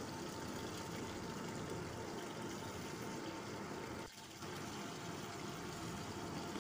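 Faint, steady sizzling hiss from chicken cooking in a pan on a gas stove, dropping out briefly about four seconds in.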